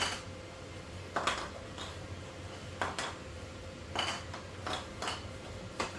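Hard 3D-printed plastic table parts and small connectors clicking and knocking together as they are handled, about eight irregular light knocks over a faint steady hum.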